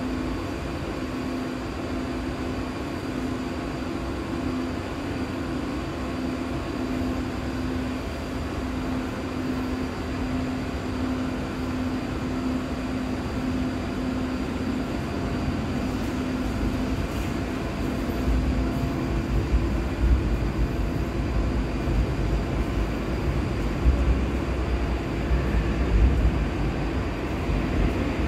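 Steady hum of an underground subway platform, then a low rumble that grows louder over the last third as a Seoul Line 3 electric train approaches through the tunnel.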